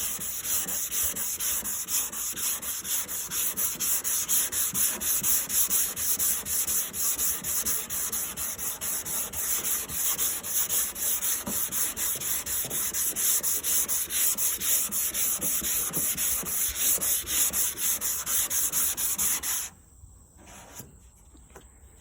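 220-grit sandpaper scrubbing over a primed car fender in quick, even back-and-forth strokes, block-sanding off the black guide coat to show up low spots. The strokes stop suddenly near the end.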